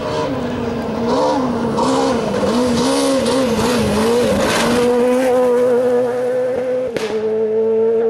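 Renault Clio rally car's engine at high revs sliding on gravel. The revs waver quickly up and down, then hold high and steady. About seven seconds in there is a sharp crack and the pitch settles a little lower, with gravel hissing from the tyres throughout.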